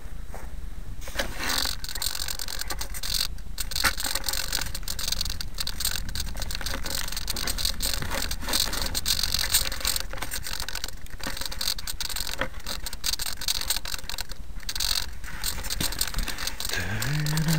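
Handling noise on a small tail-mounted camera as the model plane is picked up and moved: steady rustling and scraping with frequent knocks and crackles. The plane's motor is not running.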